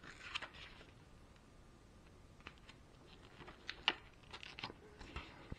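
Faint rustling as a paper instruction manual is handled, with scattered small clicks and one sharper click about four seconds in.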